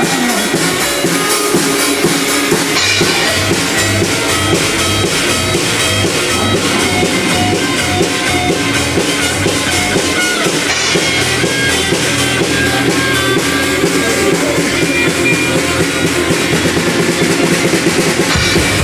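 Heavy metal music with a drum kit and electric guitar, playing loud and steady.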